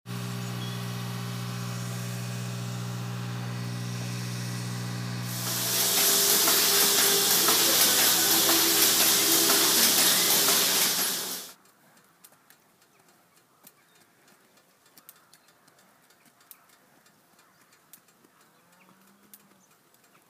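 Milking machinery hums steadily for about five seconds. Then comes a loud, even hiss that stops suddenly after about six seconds, followed by near quiet with faint scattered clicks.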